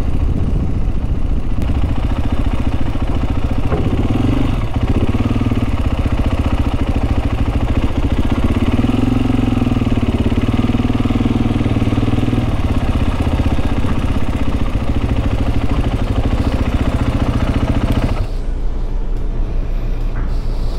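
Motorcycle engine running steadily, a continuous low drone with a hiss above it. About three seconds before the end, the hiss thins out.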